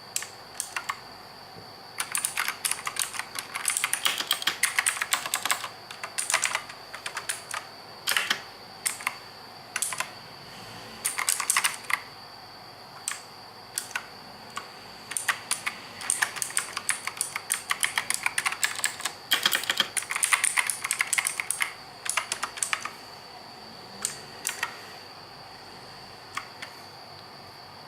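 Typing on a mechanical keyboard with blue clicky switches: bursts of sharp, fast key clicks with short pauses between runs. A faint steady high-pitched whine sits underneath.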